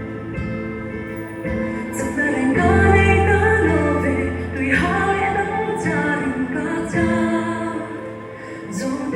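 Worship song with singing over instrumental backing and a held bass note.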